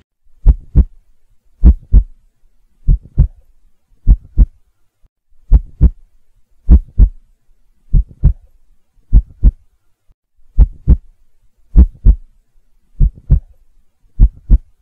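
Heartbeat sound effect: a slow, steady lub-dub of paired thumps, twelve beats about 1.2 seconds apart.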